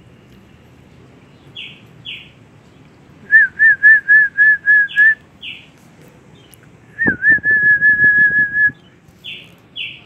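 Pet bird whistling two phrases of quick repeated notes, about four or five a second, with short higher chirps in between. A click comes at the start of the second phrase.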